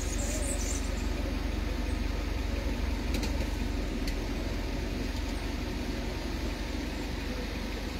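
Ambulance van's engine idling steadily while parked.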